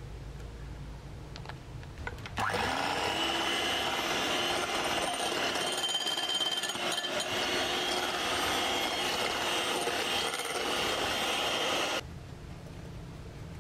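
Electric hand mixer starting about two seconds in, its motor rising in pitch as it spins up, then running steadily while its wire beaters whip meringue and red food colouring together. It cuts off suddenly near the end.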